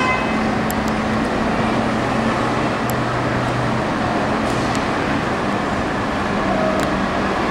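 Steady vehicle noise: a Scania heavy truck's diesel engine running, a low even hum under a wash of traffic noise.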